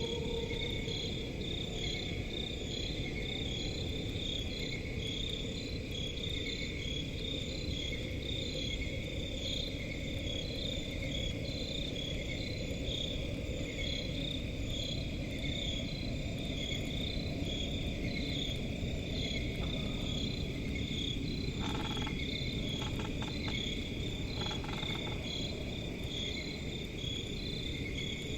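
Swamp crickets chirping in a steady, evenly pulsing chorus over a low, continuous rumbling drone. A few short, sharp calls or knocks break in near the end.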